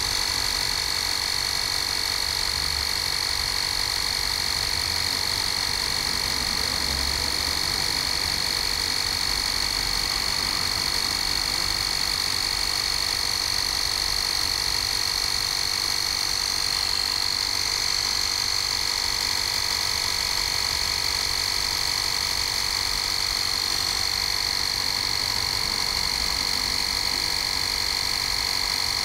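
Bosch EasyPump cordless mini compressor running steadily with a high whine as it pumps up a car tyre.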